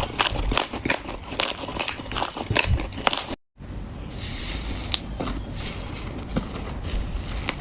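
Slime being squeezed and worked by hand, giving dense, rapid crackling and popping. After a brief cut a little over three seconds in, a softer, steadier hissing squish follows, with only scattered pops.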